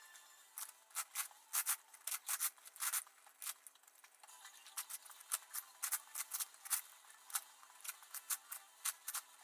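Plastic layers of an 11x11x11 puzzle cube clacking and scraping as they are turned in quick succession, several turns a second, with a sparser stretch about four seconds in.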